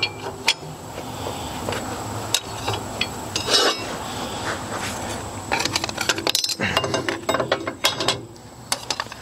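Rapid metal clicking and clinking from hand work on a rotary mower's slip clutch: steel plates, friction discs and hardware knocking together, in clusters of quick clicks.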